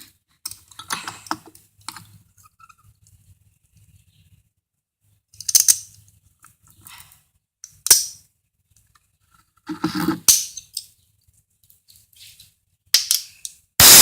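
Scattered clicks and knocks of objects being handled. Near the end a loud, steady rush of air starts abruptly.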